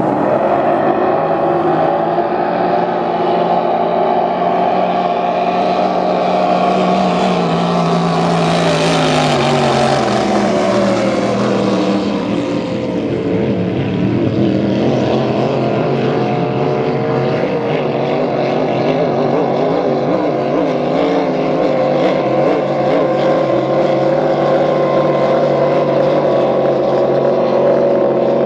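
Racing speedboats at full throttle, several engine notes droning together. From about six seconds in the engine pitch sweeps steadily down as a boat goes past.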